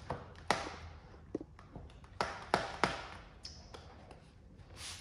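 Several light, sharp clicks and taps at uneven spacing, with soft rustling between them, as polyurethane paint protection film is worked by hand with a squeegee over a car mirror housing.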